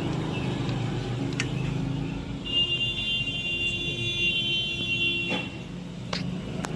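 Bajaj Pulsar AS150's single-cylinder engine running steadily, the engine noise that is the problem under diagnosis. A high steady tone sounds for about three seconds in the middle, and there are a few sharp clicks.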